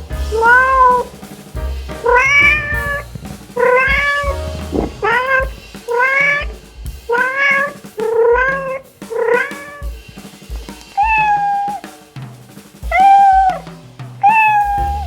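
Cat meowing over and over, about eleven meows roughly a second apart, the later ones longer and held on one pitch.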